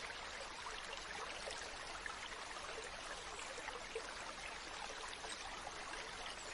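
Running water of a mountain stream: a steady babble with many small splashes.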